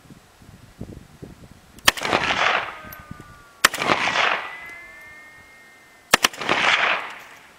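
Rifle firing outdoors: a single shot, another about two seconds later, then a quick pair of shots, each followed by a rolling echo.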